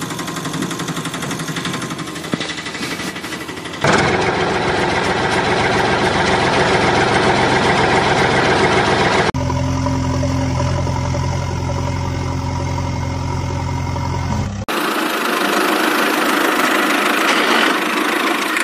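Engine sounds in spliced clips that cut abruptly from one to the next. One engine is running, then a louder engine takes over about 4 seconds in. Around the middle a heavy engine idles with a steady deep hum, and near the end another engine runs.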